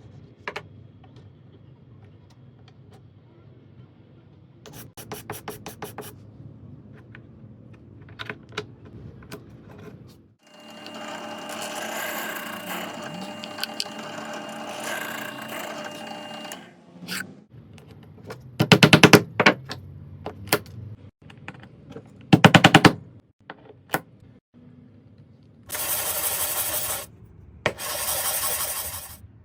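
Woodworking tools on small wooden parts. There are several bursts of rapid scraping strokes, the loudest near the middle and end. For about six seconds in the middle, a small power tool runs steadily.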